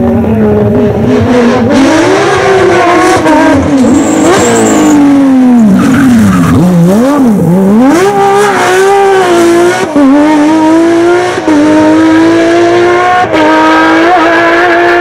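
Porsche 997 GT3's flat-six racing engine at high revs. The revs swing sharply down and up through a corner, then climb hard with several quick gear changes.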